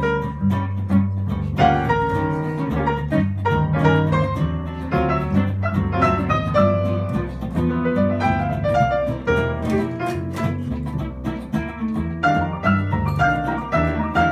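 Live jazz on grand piano with plucked double bass: the piano plays a busy run of notes over the bass line.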